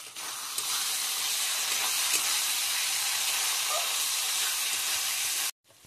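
Spiced onion-tomato masala with fresh red chilli powder sizzling in hot mustard oil in a kadhai as it is stirred with a spatula, a steady loud hiss. It cuts off suddenly near the end.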